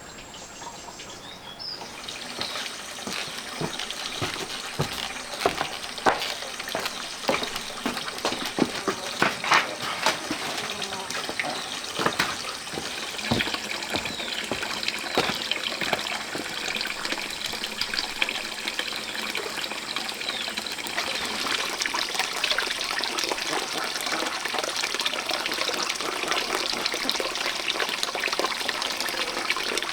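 Water running and splashing, starting about two seconds in, with sharp splashes or knocks through the first half, then a steady flow that slowly grows louder.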